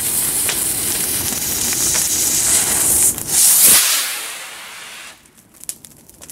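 Firework rocket (a 'Flower Star') firing: a steady sizzling hiss that swells into a louder whoosh about three and a half seconds in, then fades away as it climbs. A few faint pops follow near the end.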